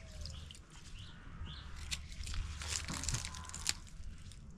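Dasheen leaves crinkling and tearing as they are handled and stripped, with scattered small clicks. Birds chirp now and then.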